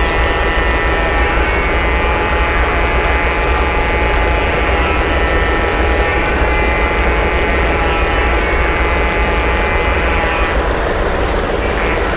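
O scale three-rail model train running along its track, heard from a car riding on the train: a steady whine from the drive motor and gears over a constant rumble of wheels rolling on the rails, the whine shifting slightly near the end.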